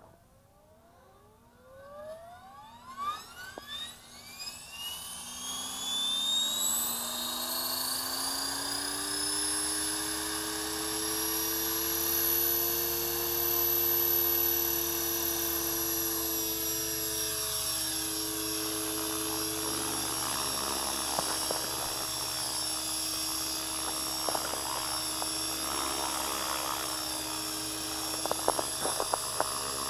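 Align T-Rex 500 electric RC helicopter spooling up: the high whine of its brushless motor and the lower hum of the rotor climb steadily in pitch over the first several seconds as head speed builds, then hold steady. The pitch dips slightly about halfway through, and a few light clicks come near the end.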